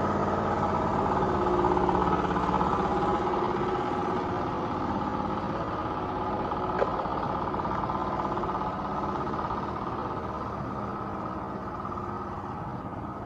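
An engine running steadily and slowly growing fainter, with a brief sharp click about seven seconds in.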